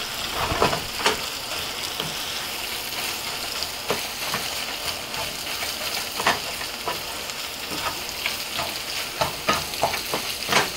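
Mashed rohu fish roe frying in oil in a nonstick pan, a steady sizzle, while a wooden spatula scrapes and knocks against the pan as it is stirred. The sharper knocks come in a couple of bunches, one about a second in and several more in the last two seconds.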